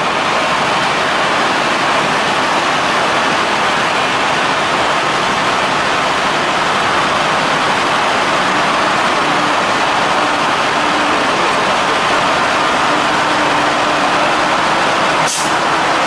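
Ural-4320 6x6 truck's diesel engine running steadily under load as the truck crawls through deep mud, with one sharp click near the end.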